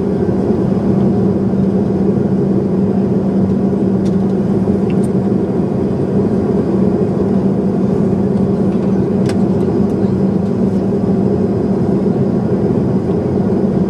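Steady cabin noise of an airliner in flight: an even engine drone with a steady low hum under a wash of airflow noise. A faint click sounds about nine seconds in.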